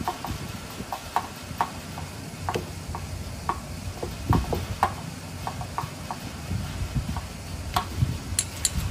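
Irregular light clicks and ticks of a screwdriver working the screws on a Honda CB450 carburetor, a few per second.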